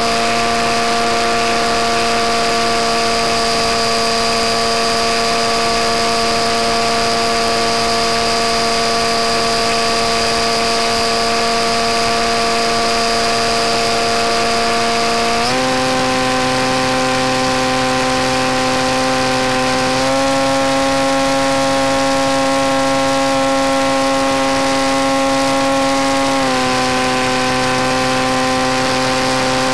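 Electric motor and propeller of a Skywalker FPV plane running steadily under power, a whine of several tones together. The pitch steps up about halfway through and again a few seconds later, then drops back near the end as the throttle changes.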